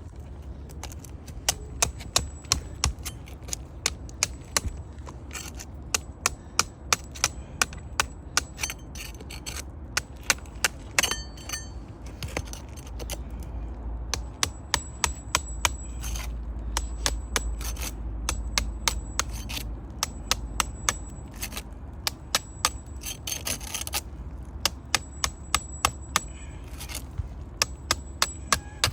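Runs of sharp taps, several a second, with scraping between them, in bursts broken by short pauses: hand tools working on 3-tab asphalt roof shingles.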